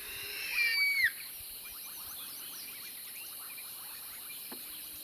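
Night bush ambience: crickets and other insects chirping steadily in a dense, even rhythm, with one clear whistled call falling in pitch about half a second in.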